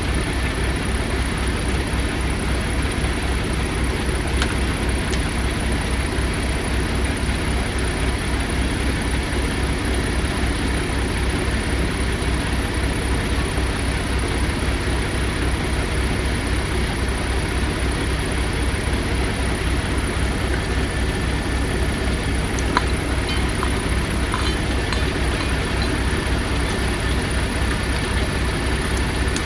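Kenworth T680 semi truck's diesel engine idling steadily, with an even low pulsing, a few faint small clicks about three quarters of the way through.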